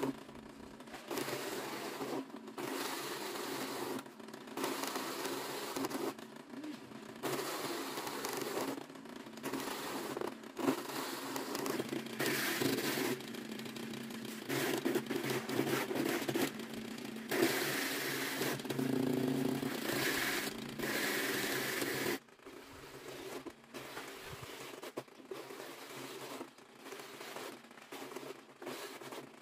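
Dry shredded strips rustling and crackling against a plastic tarp as they are spread and turned by hand, in uneven stretches a second or two long with short pauses between.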